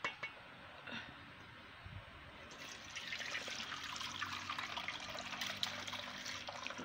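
A couple of light knocks, then from about two and a half seconds in, steeped sorrel liquid pours steadily through a strainer into a pot.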